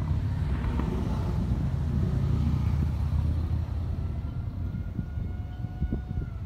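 Steady low outdoor rumble with a few soft knocks, and a faint tone that slides slowly down in pitch in the second half.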